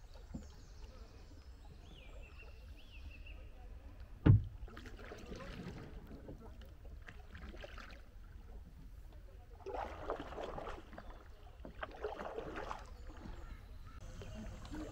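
Kayak paddling: the paddle blades dipping and pulling through the water, with splashing strokes in a few short spells. About four seconds in there is a single loud knock.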